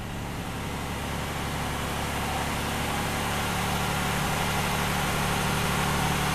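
Ford 4.9-litre inline-six idling steadily, heard from inside the cab, on its first run after reinstallation. The distributor has only been stabbed in and not timed, but the engine runs evenly, which the owner takes as close to correct timing. It runs without its accessory belt.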